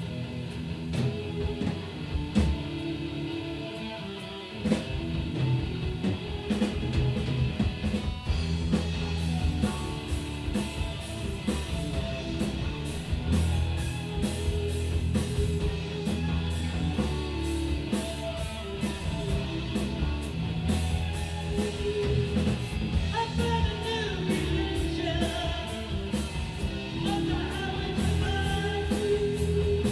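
Live rock band playing a song. It opens on electric guitar, and the full band with drum kit comes in about four and a half seconds in, getting louder.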